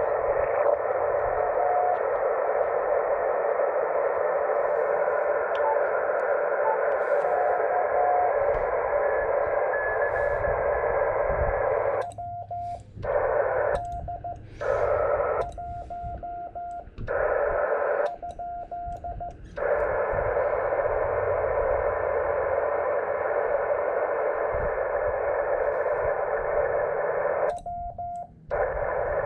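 Shortwave amateur transceiver audio on the 18 MHz band: a steady hiss of band noise through the receiver's narrow filter, with faint Morse code tones from other stations. About twelve seconds in, the band noise cuts out in four short runs while the operator's own Morse code sidetone keys dots and dashes, as it does when transmitting; this happens once more near the end.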